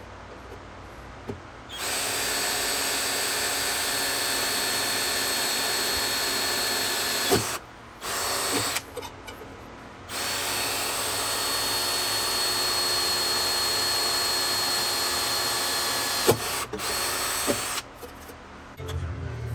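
A power tool runs in bursts: one run of about five seconds, a couple of short blips, then a second run of about six seconds, ending with another brief blip.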